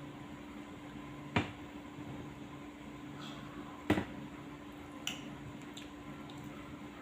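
A few sharp clicks of a fork against a plate while eating cake, two louder ones about a second and a half and four seconds in and a fainter one near five seconds, over a steady low hum of room tone.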